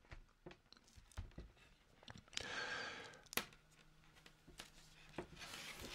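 Faint scattered clicks of circular knitting needles and a soft rustle of needle cable and yarn as the magic-loop knitting is shifted on the needles, with a sharper click about three and a half seconds in.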